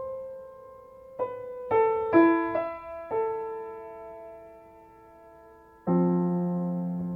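Slow solo piano tuned to C=528 Hz. A few single notes and sparse chords are struck and left to ring out. A fuller, lower chord comes about six seconds in and is held.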